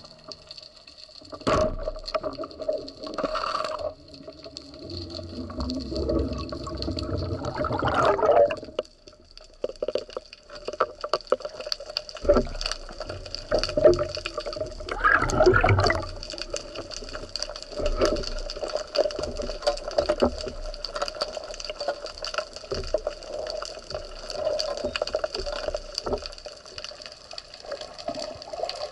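Underwater sound picked up by a camera on a spearfishing speargun: water rushing and bubbling in several louder surges, over constant scattered crackling clicks and a steady hum.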